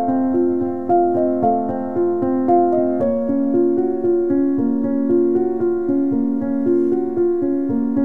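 Background piano music: a melody of notes that change a few times a second, with the pitch pattern shifting about three seconds in.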